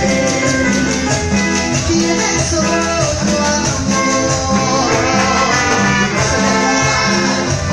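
Live band playing Latin dance music: trumpet over keyboard and percussion.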